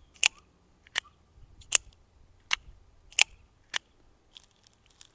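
Two spring-loaded out-the-front pocket knives snapping their blades out and back in: six sharp metallic clicks, about one every three-quarters of a second.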